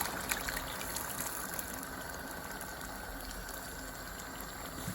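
Pot of tomato stew with chicken stock just added, simmering with a steady hiss of bubbling liquid. There are a few small clicks in the first second or so and a light knock near the end.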